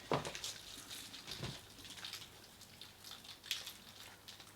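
Quiet eating sounds while tasting sweets: scattered small irregular clicks and crackles of mouths and snack packaging.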